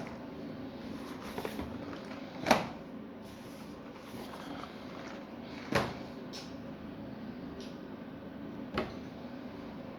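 Packaging being handled during an unboxing: three sharp knocks about three seconds apart, with lighter clicks between them, over a steady low hum.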